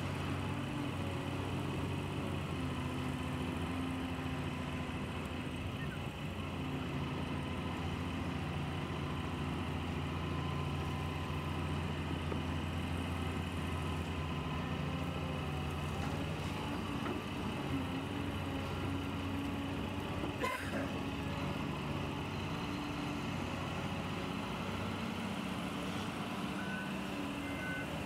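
Radio-controlled model trucks running, a steady engine-like drone that shifts in pitch now and then. A single sharp knock comes about twenty seconds in, and a reversing beeper sounds in even pulses near the end.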